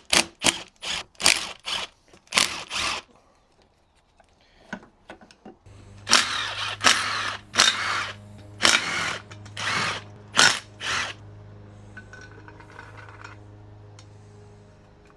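Handheld power tool run in a quick series of short bursts, likely backing out engine case bolts. A second cluster of bursts comes about six to eleven seconds in, over a steady low hum that starts about halfway through.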